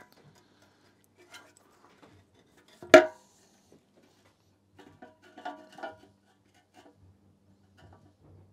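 Spark plug and its HT lead cap handled against the outboard's metal fuel tank while being set up for a spark test: one sharp knock about three seconds in, then a short patter of softer clicks and rattles.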